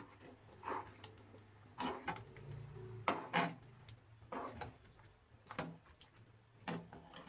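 Steel ladle stirring a thick bean curry in a pot, knocking and scraping faintly against the pot's side about once a second, over a low steady hum.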